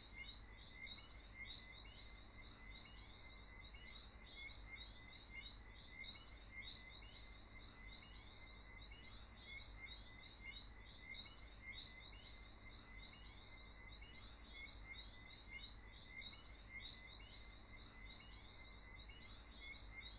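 Faint night-time chorus of chirping insects: steady high-pitched trilling with quick chirps repeating several times a second throughout.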